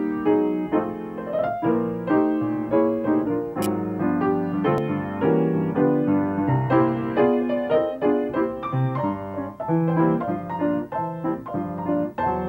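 Piano playing a continuous flowing passage of chords and melody notes, struck in quick succession.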